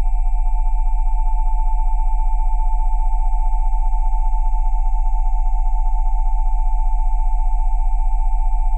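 Steady electronically generated sine tones at about 727, 787 and 880 Hz held together over a deep 20 Hz tone, with an even, rapid pulsing in loudness.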